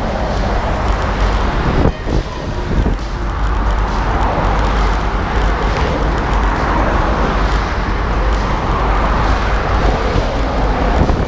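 Steady highway traffic noise of trucks and cars passing close by, heard from a moving bicycle, with heavy low rumble on the microphone. There is a brief dip in loudness about two seconds in.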